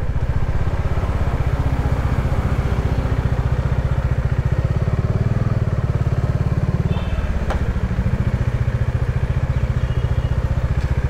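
Bajaj Dominar 400's single-cylinder engine running steadily at low revs, easing off slightly about seven seconds in.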